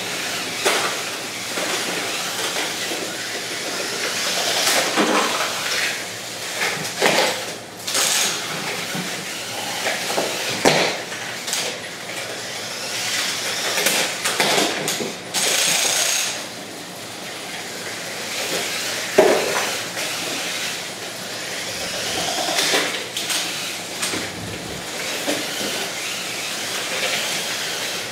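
Lego combat robots fighting: the steady whir of their small electric drive motors and spinning weapons, broken by repeated clattering hits of plastic Lego parts as the spinners strike, with a sharp loud hit about 19 seconds in.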